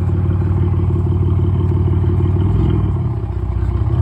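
Pontiac engine idling with no catalytic converters and a performance tune, giving a loud, deep exhaust note with a rapid even pulse. The idle note wavers and dips slightly about two and a half seconds in.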